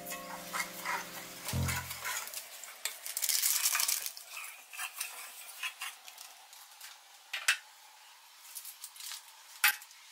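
Rice and yellow turmeric cooking liquid being stirred in a ceramic-coated rice cooker inner pot, the utensil scraping and sloshing. There are two sharp knocks against the pot near the end.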